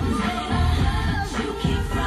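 Pop song with a strong beat and singing, playing on a car stereo.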